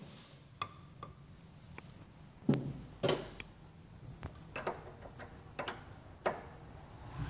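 Irregular light clicks and taps of an aluminium AN wrench and -AN hose fittings being handled as rubber fuel hoses are worked onto a fuel pressure regulator. The two loudest knocks come about two and a half and three seconds in.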